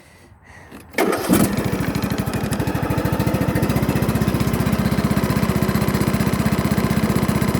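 A small engine starts about a second in, catching straight away, and settles into steady, even running.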